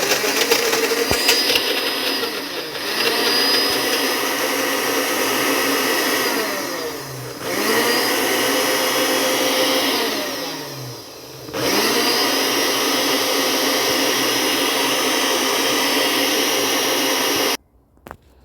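Electric blender grinding garlic, onion, lemon, herbs, honey and oil into a paste. It runs in long stretches, winds down twice and spins back up, then stops shortly before the end.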